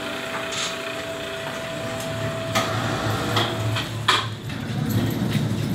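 Hollow metal knocks and clanks, about half a dozen spaced irregularly, as an aluminum boat hull is shifted against a steel boat rack and rail launch cart; a low rumble sets in about two thirds of the way through.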